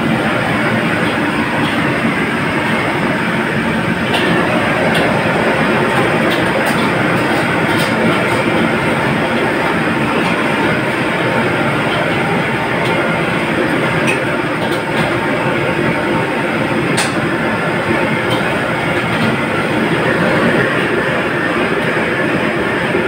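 Commercial gas wok burner running with a steady rushing noise under a wok of oil in which foil-wrapped pompano is frying, with a few faint metal clicks.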